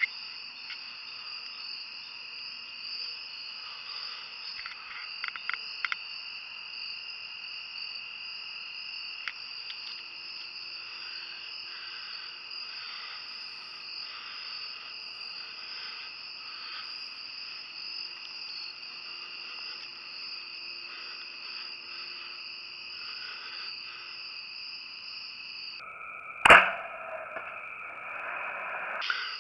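A steady, high-pitched insect chorus, broken about 26 seconds in by one sharp, loud snap as a Sanlida Dragon X8 compound bow is shot and releases an arrow.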